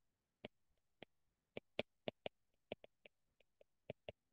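Faint, irregular clicks of a stylus tapping on a tablet screen while handwriting, about fifteen in a few seconds.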